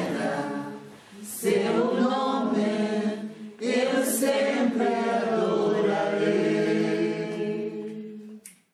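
A small group of men singing a Portuguese-language worship song a cappella, with two short breath pauses, the singing dying away near the end.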